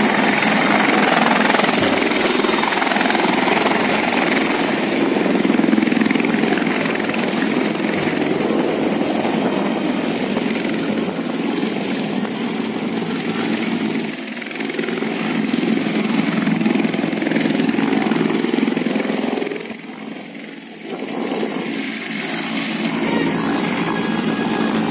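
Helicopter running close by: a loud, steady rushing noise of rotor and turbine, dipping briefly about twenty seconds in.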